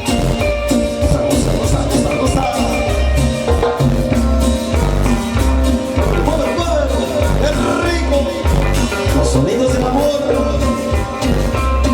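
Cumbia band music with a steady bass-and-drum beat under a pitched melody line.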